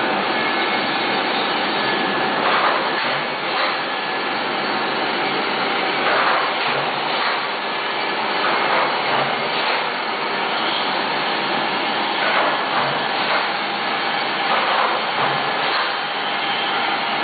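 Conveyor UV curing machine running: a steady whirring machine noise of its blower and belt drive, with light knocks every few seconds.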